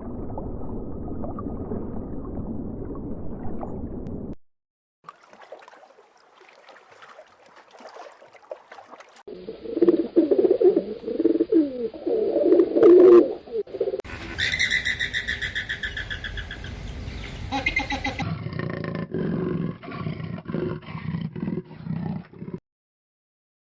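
A series of different animal calls, one clip after another: a low rumbling roar for about four seconds, then after a faint stretch loud calls that bend up and down in pitch, followed by higher repeated calls and a run of short pulses that stop shortly before the end.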